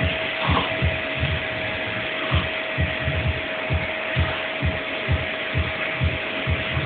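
Vacuum cleaner running steadily: a constant whine over a hiss, with low thumps repeating about twice a second.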